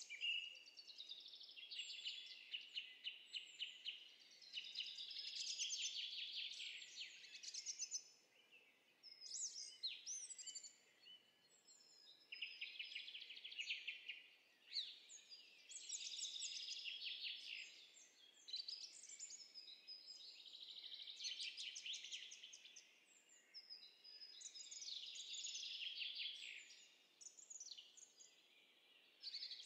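Songbirds singing, a recorded nature sound effect: phrase after phrase of fast high trills and chirps, with short pauses between them.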